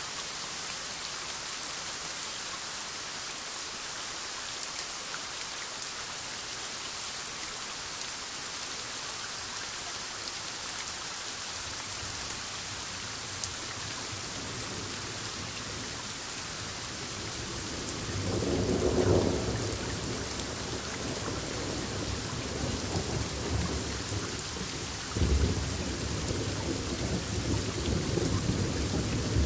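Steady heavy rain hissing, with thunder building into a long rolling rumble about two-thirds of the way through. A second, sharper clap of thunder follows near the end and rumbles on.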